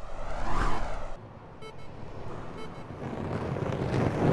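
Animation sound effects: a rushing whoosh swells and dies away within the first second, then two short electronic beeps come about a second apart, and a low rumbling rush builds steadily toward the end.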